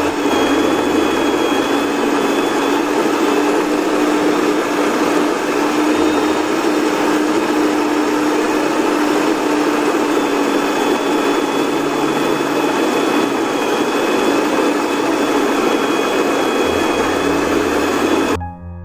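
Miyako electric stand mixer running steadily, its beaters churning a thick rice-flour and fermented-cassava batter in the bowl: a steady motor hum over a churning whirr. It cuts off suddenly near the end.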